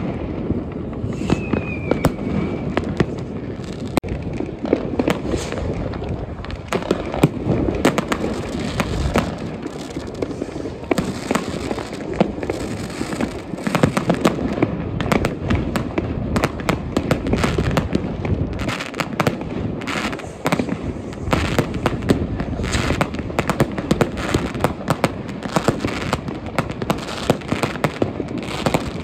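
Many consumer New Year's fireworks going off at once: a continuous, overlapping stream of bangs and crackling over a constant rumble. A short falling whistle comes about a second in.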